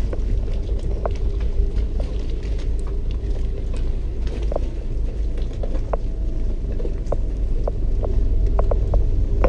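A boat's engine running at idle with a steady low rumble and hum, with scattered light clicks and knocks.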